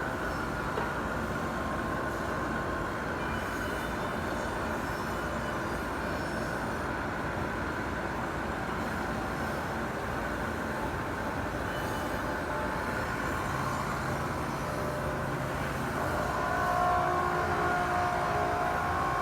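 CNC woodworking machine running steadily, a continuous mechanical noise; a low tone comes in about two-thirds of the way through and higher steady tones near the end.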